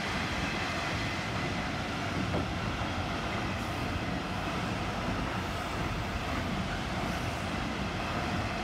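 Copenhagen S-train, an electric commuter train, running along the track: a steady rumble of wheels on rails, with a faint high whine in the first second.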